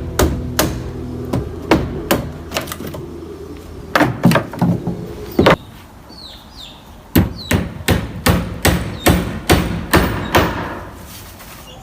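Repeated sharp blows of a hand tool, in uneven runs with a pause of about a second and a half about halfway through, from work on a boat being refitted.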